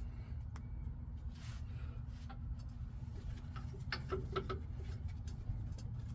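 Light metallic clicks and clinks as brake caliper bracket bolts are threaded in by hand, with a quick run of several clinks about four seconds in, over a steady low hum.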